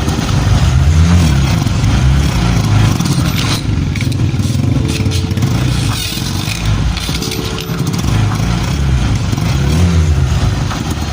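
Honda CG 125 motorcycle engine running and being revved up and down several times, with the abnormal engine noise that is traced to the clutch side.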